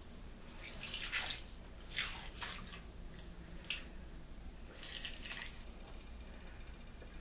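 Juice poured in a thin stream over raw seasoned chicken pieces in a glass baking dish, trickling and splattering in a few short bursts.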